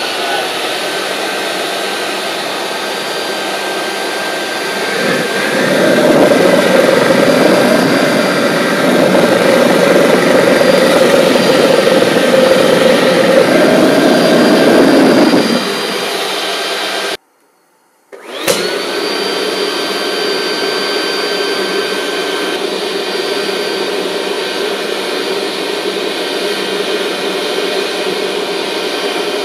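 Home-built turbocharger-based gas turbine engine running, with a steady high whine over a rushing exhaust noise. About five seconds in, a deeper roar swells and holds for some ten seconds before dropping back. The sound cuts out briefly just after halfway, then the turbine runs steadily again with its whine.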